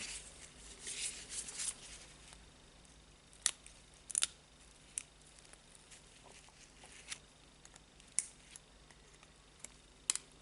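Spring ring (circlip) being fitted with circlip pliers over the washer and gear on an angle grinder's spindle. Light scraping in the first couple of seconds, then sharp metallic clicks and snaps every second or so.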